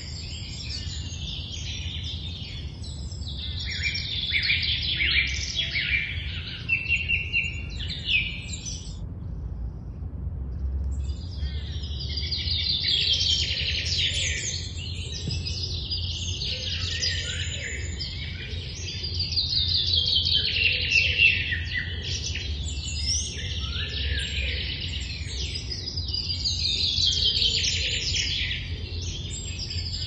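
Early-morning birdsong: several birds singing at once in overlapping phrases, some of them quick series of notes falling in pitch, with a brief lull about nine seconds in before the singing resumes. A steady low rumble runs underneath.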